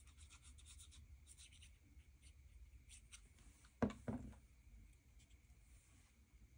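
Faint rubbing and scratching of paper as a glued strip of printed text is handled and pressed onto an index card, with one short knock about four seconds in.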